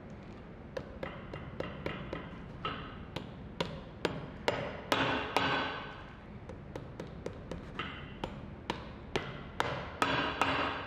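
Shoemaker's hammer tapping repeatedly on the bottom of a shoe, about two or three sharp strikes a second, with a louder run of strikes near the middle and again near the end.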